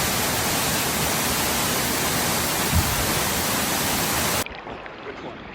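Loud, steady rush of a waterfall, with a brief low thump about halfway through; it cuts off suddenly near the end, leaving quieter background.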